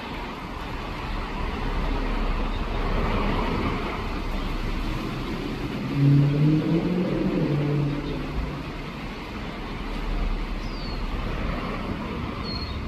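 Road traffic passing, a steady noise that swells and fades as vehicles go by, with a brief pitched vehicle hum about halfway through. Two faint, short, high bird chirps near the end.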